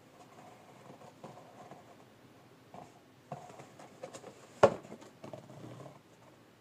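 Colored pencil scratching on a cardboard shoebox in short strokes, with cardboard handling noise and one sharp knock about four and a half seconds in.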